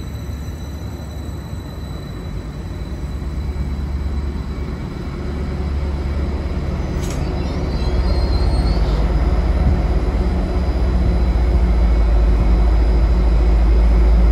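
Diesel power pack of a Greater Anglia Class 755 bi-mode train rumbling deep and steady, growing louder as the train draws in under a footbridge and stops with the power-pack car directly beneath. A brief high squeal comes about seven seconds in.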